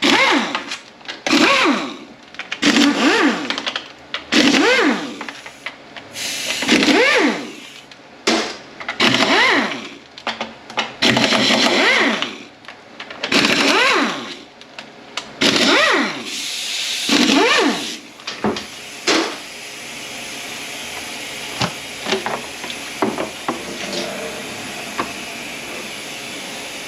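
A cordless power driver spins out 8 mm bolts one after another on a Ford 10R80 ten-speed automatic transmission, in about nine short runs of a whine that rises and falls in pitch. In the last third a steady hiss takes over, with a few clicks.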